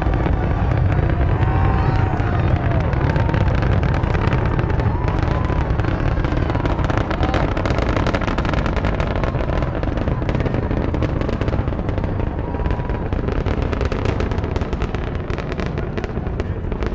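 Space Shuttle Discovery's solid rocket boosters and main engines at liftoff, heard from about 3 miles away: a deep, steady rumble laced with rapid crackling.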